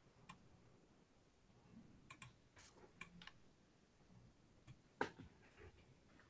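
Near silence broken by about eight light, irregular clicks, like keys or buttons being pressed at a desk; the loudest comes about five seconds in.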